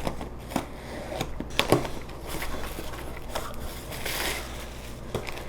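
Shipping package being opened and its contents unwrapped by hand: crinkling and rustling of packing material, with scattered clicks and light knocks.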